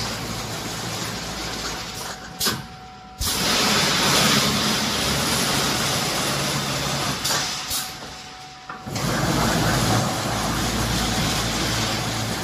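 Pneumatic automatic welded wire mesh welding machine running: a steady, hissing machine noise that twice drops away for about a second and cuts back in abruptly, about three seconds in and near nine seconds.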